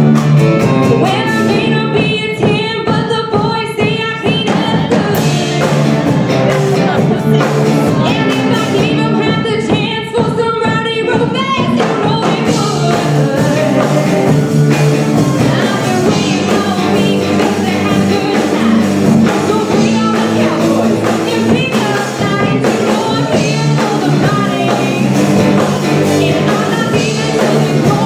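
Live country-rock band playing: electric guitars, drum kit and fiddles, with a woman singing lead into a microphone.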